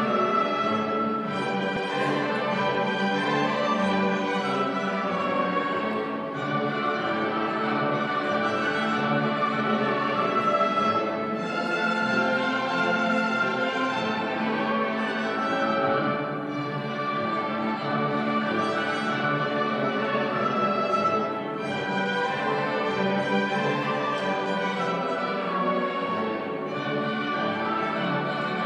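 A school orchestra playing a classical piece, with bowed strings prominent; the music runs continuously and evenly loud, sustained chords with no pause.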